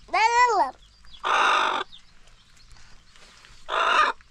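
Birds calling: a short squawk that rises and falls in pitch at the start, then two harsh, noisy calls about half a second long, spaced a couple of seconds apart.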